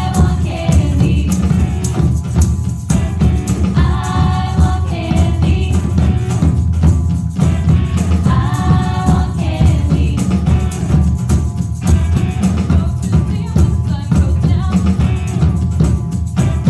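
A group of women singing together over a live band, with a tambourine and a steady, bass-heavy beat. The voices come in phrase by phrase, strongest near the start, about four seconds in and about eight seconds in.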